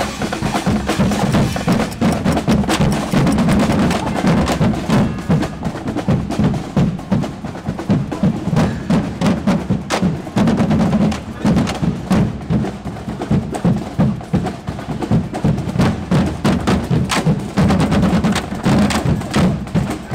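Music driven by drums and percussion, with a steady rhythmic beat.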